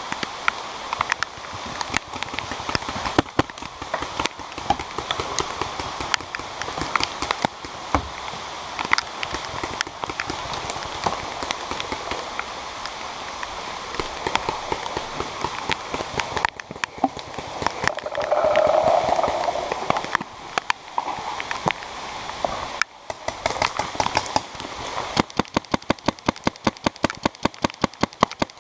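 Heavy rain pattering on gear and the microphone, with scattered sharp clicks. Near the end a paintball marker fires a fast, even string of shots, about six a second.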